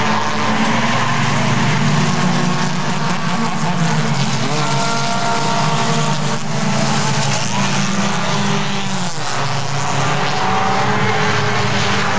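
A pack of Bumblebee-class stock cars racing around an oval track, their engines running hard together. The sound is loud and continuous, with several engine pitches overlapping and shifting as the cars go by.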